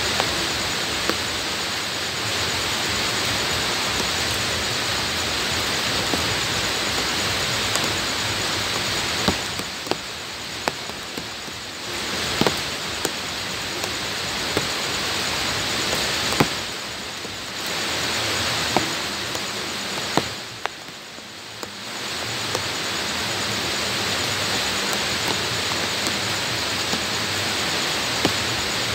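Steady rain falling on bare ground, an even hiss with sharp taps of single drops landing close by. The rain sound eases briefly three times in the middle.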